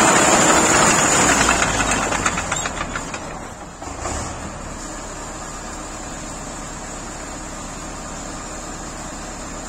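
DT-75 crawler tractor's diesel engine running loud and close with its engine bay open, no side panels fitted. About three to four seconds in it falls away as the tractor moves off, then runs on steadily at a lower level.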